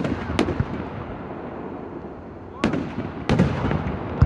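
Fireworks going off: about five sharp bangs in two clusters, two near the start and two more past the middle, each trailing a rumbling echo.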